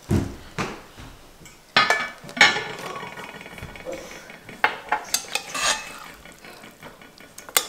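Metal ladle clinking and scraping against an enamelled cast-iron Dutch oven as thick, freshly baked chicken curry is stirred, with scattered sharp knocks, some ringing briefly.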